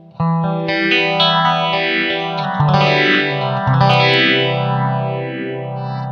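Electric guitar, a Telecaster, played through a Maestro Orbit Phaser pedal: a phrase of picked notes and chords starts just after the beginning. The phaser's slow sweep rises and falls about once a second, and the last chord rings out under it near the end.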